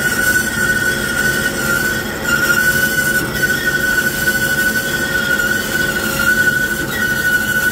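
Vertical contour band saw cutting aluminium plate, with a steady high-pitched whine over the noise of the running blade and the cut.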